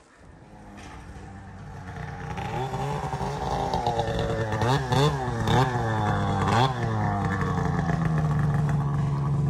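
Snowmobile engine approaching and growing louder, revving up and down several times, then running at a steady pitch near the end.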